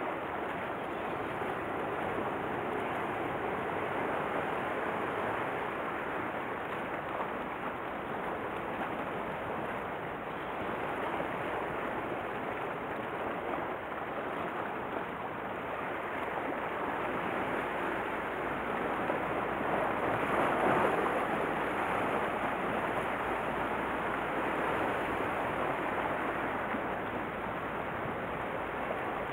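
Sea surf washing against a rocky shore, a steady rush of water with one wave swelling louder about two-thirds of the way through.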